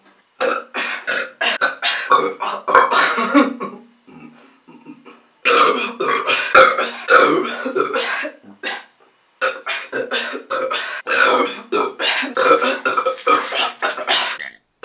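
A woman burping loudly over and over in quick succession, in three long runs with short breaks about 4 and 9 seconds in: gas brought up after eating bananas and chugging a 2-liter Sprite.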